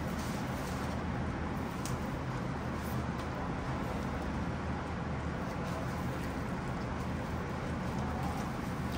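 Steady low background hum of an indoor room, with a few faint clicks.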